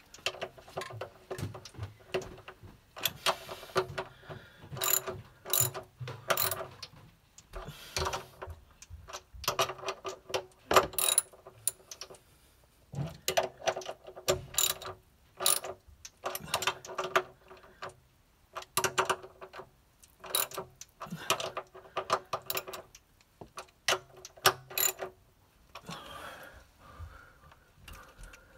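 Ratchet of a socket wrench clicking in many short runs as it turns a water heater's heating element, the clicking stopping near the end.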